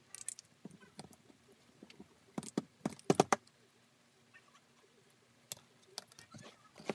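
Hands handling small leather parts and tools on a cutting mat: scattered light taps and clicks, with a quick cluster of sharper clicks about two and a half to three and a half seconds in and single taps near the end.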